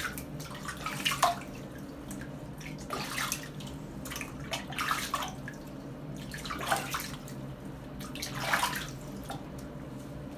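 Bath water splashed up by hand over a ferret's body while rinsing him, about five splashes a second or two apart over a steady low background.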